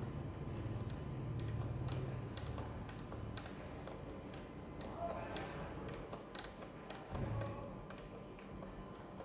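Speed-setting knob of a Taisite AM110W-O overhead stirrer being turned, giving a string of light, irregular clicks as the set speed steps up; the stirrer motor is not running. A soft low thump comes near the end.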